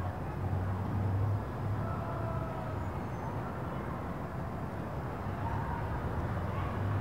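Outdoor ambience: a steady low rumble of distant traffic, with a few faint brief calls above it.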